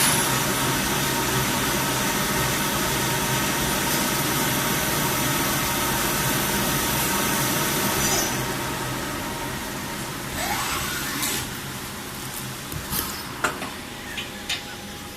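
CNC lathe running steadily with a few steady whining tones. About eight seconds in the sound drops to a lower level, a brief rising whine follows a couple of seconds later, and several sharp clicks come near the end.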